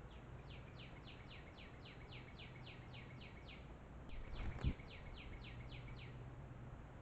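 A bird calls in quick falling notes, about four a second, in two runs with a short break between them. A low thump about four and a half seconds in is the loudest sound.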